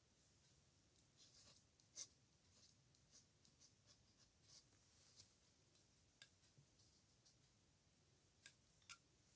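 Faint scratching of a pen on paper in short writing strokes, with a few sharper ticks: one about two seconds in and two close together near the end.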